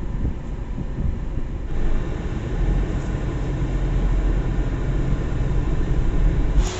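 Small Suzuki hatchback's engine and road noise, heard from inside the cabin as the car pulls away in gear and drives slowly, growing louder from about two seconds in. The sound changes abruptly near the end.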